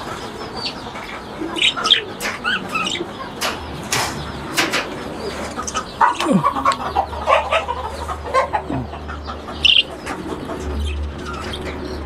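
A flock of caged budgerigars and lovebirds chirping and chattering in short, scattered calls, with a few sharp clicks in the middle and a low hum from about halfway.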